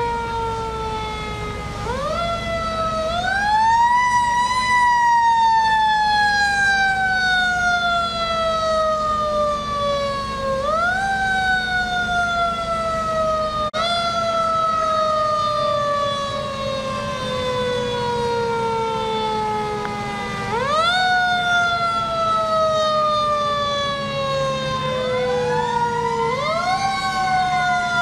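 Fire truck siren wound up several times, each time rising quickly in pitch and then falling slowly over several seconds, with a steady engine hum beneath.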